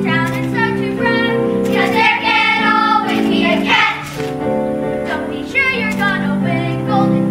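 Children singing a song from a stage musical over instrumental accompaniment.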